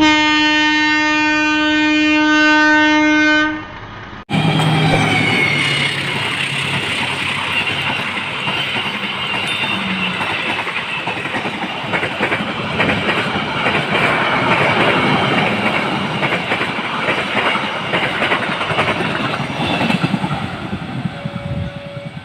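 Diesel locomotive horn sounding one long steady blast. After a short break, a passenger train's coaches pass close by with a loud rushing rumble and wheels clattering over the rail joints, fading near the end.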